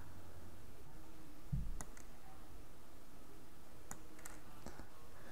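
Faint, scattered small plastic clicks from handling a snap-together LED strip corner connector while the strip's contacts are worked under its feet with the metal tip of a dart, with a short dull knock about one and a half seconds in and a few quick clicks near the end.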